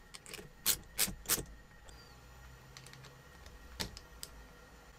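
Sharp metallic clicks from a ratchet wrench, socket and small steel parts being handled: three close together about a second in, then two fainter ones near the end.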